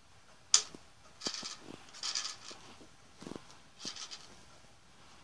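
Handling noise from a hand at the console and disc: one sharp click about half a second in, then several short rubbing, scratching sounds.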